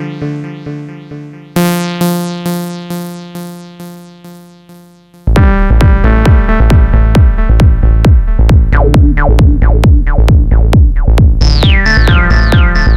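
Live techno from a drum machine and synthesizer. A repeating synth chord pattern fades away over about five seconds, then the full beat drops in with a steady kick drum, hi-hats and bass. Near the end a repeating falling high synth figure joins.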